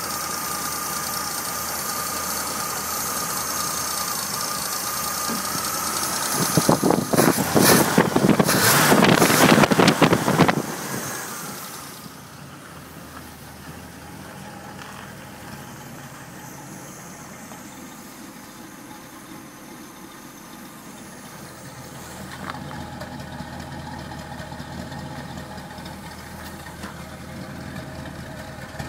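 Corvette L82 350 small-block V8 with a four-barrel Rochester Quadrajet, air cleaner off, running at idle with a thin steady whine. About a quarter of the way in it is revved for a few seconds, much louder and rougher, then drops back to a steady idle. Near the end the exhaust outlet is heard.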